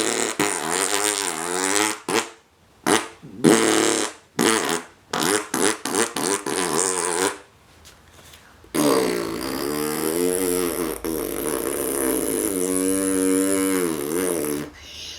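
Mouth-made motocross dirt bike sound effects: buzzing voices imitating an engine revving up and down through the gears. Short revving bursts for the first half, a short pause, then one long continuous run with the pitch climbing and dropping.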